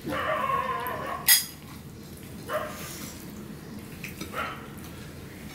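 A dog's drawn-out, wavering call for the first second or so, then shorter calls twice more. About a second in, a steel serving spoon gives one sharp clink against a dish; this is the loudest sound.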